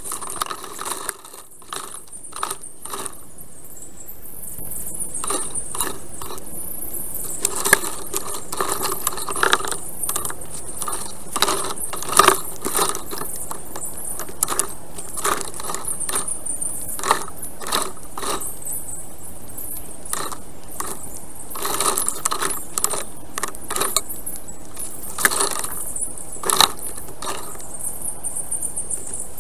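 Sped-up audio from a black stork's nest camera: a rapid, irregular run of clicks and rattles as the stork shifts sticks in the nest, over a steady high hiss.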